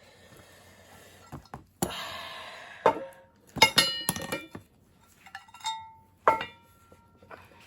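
Metal parts of a Safetran mechanical crossing bell knocking and clinking as they are handled. There is a rushing hiss for about a second, then a quick cluster of strikes with short ringing tones about halfway. A single louder strike near the end leaves a clear tone ringing on.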